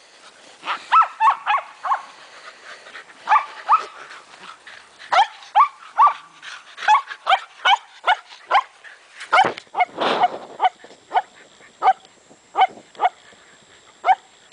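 Shetland sheepdog barking over and over in short, sharp, high-pitched barks, about one to two a second: excited play barking during a game of ball.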